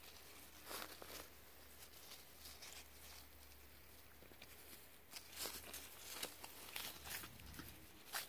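A small puppy's paws pattering and scuffling on the floor: scattered soft taps about a second in, then more frequent taps and rustles from about five seconds on, over a faint low hum.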